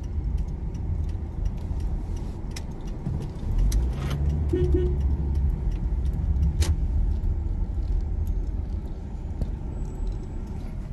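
Road and engine noise inside a moving van's cabin: a steady low rumble, with scattered light clicks and rattles.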